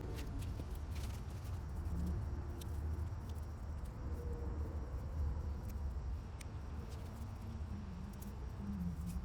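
Carrots being pulled by hand from garden soil: scattered soft clicks and rustles over a steady low rumble.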